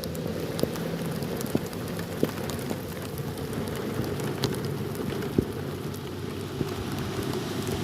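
Heavy rain falling steadily, with many sharp individual drop impacts tapping through the dense patter.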